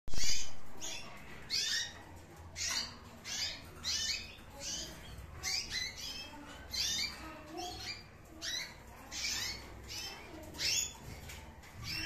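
Green-cheeked conures calling: a steady series of short, high calls repeated about every two-thirds of a second, after a loud burst at the very start.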